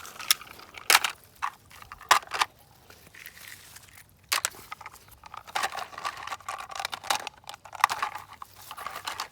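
Hard plastic toy vehicles clicking and knocking together as they are handled and set down, a scattered string of sharp knocks that come thicker in the second half.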